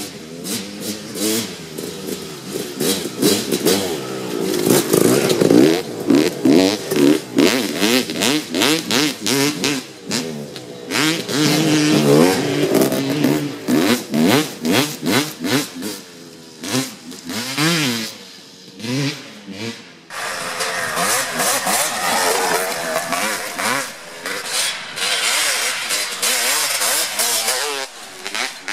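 Motocross dirt bikes riding hard past on a dirt trail, engines revving up and down again and again as the riders work the throttle and shift. The sound changes abruptly about two-thirds of the way through.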